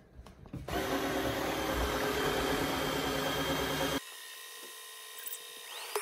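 Tineco Floor One S3 wet-dry vacuum running its self-cleaning cycle in its base: the motor starts under a second in and runs loud and steady, flushing the roller and brushes. About four seconds in it drops abruptly to a quieter steady hum.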